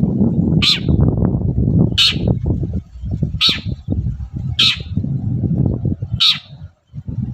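Long-tailed shrike calling: five short, harsh calls about one every second and a half, over a loud, steady low rumbling noise.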